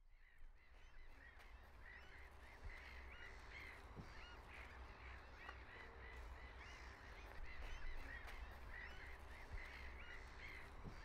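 A flock of birds calling over and over in short, hooked calls, with a low steady rumble underneath; the sound fades in at the start.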